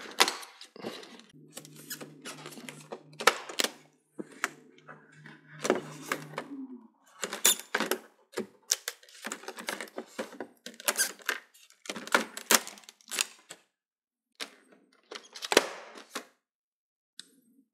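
Plastic push-in retaining clips in a TV's LED backlight being pried and pulled out with pliers, giving a string of irregular sharp clicks, snaps and squeaks. A low steady hum runs under the first few seconds.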